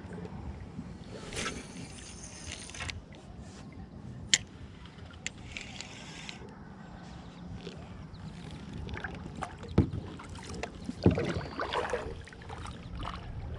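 Steady low rumble of wind and water around a small fishing boat, with a few sharp knocks, the loudest near the end, and brief rustling hiss.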